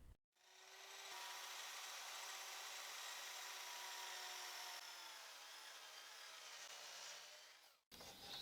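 Miter saw heard faintly, running for a few seconds with a slight fall in pitch, then fading out.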